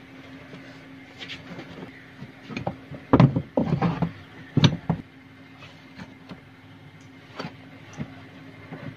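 Pipe wrench working a washing machine's rotor loose: scattered metallic clicks and knocks, the loudest a cluster of heavy knocks between about three and five seconds in, over a steady low hum.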